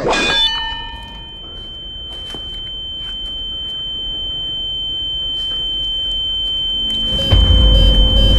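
A sudden sharp hit, then a single steady high-pitched ringing tone that hangs on and slowly grows louder: a film's ear-ringing sound effect. About seven seconds in, music with a deep bass comes in under it.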